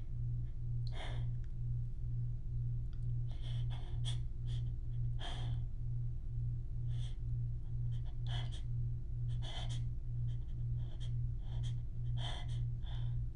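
A woman taking short, sharp breaths every second or so during a sneezing fit, without sneezing. Under them runs a steady low hum that pulses about twice a second.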